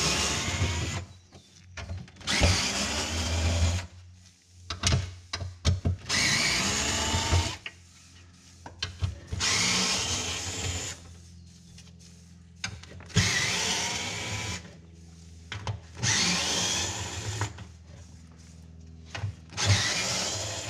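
Cordless drill-driver backing out quarter-inch-head screws from a sheet-metal quarter-window assembly, in about seven short runs of a second or so. Each run starts with a quick rising whine as the motor spins up. Small clicks and knocks come between the runs.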